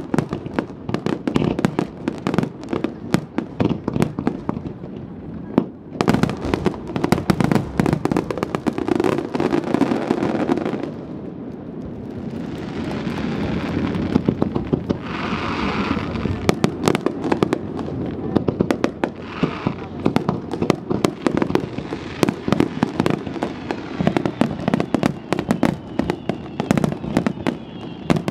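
A Japanese wide starmine fireworks barrage: shells fired in rapid succession and bursting in a dense run of sharp bangs and crackles, easing into a steadier noisy stretch near the middle before the rapid bursts build again.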